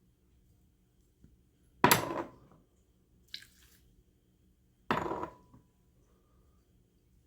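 Two knocks of kitchenware, each with a short ring, as ceramic ramekins are tipped against a mixing bowl to empty ingredients into it, with a lighter click between them.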